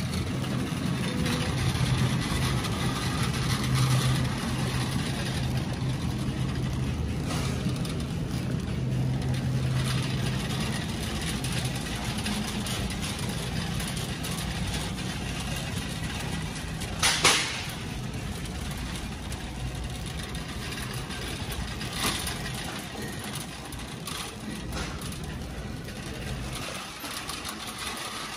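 Shopping cart rolling along a grocery store aisle: steady wheel rumble and rattle of the wire basket, with one sharp knock about halfway through and faint voices in the store.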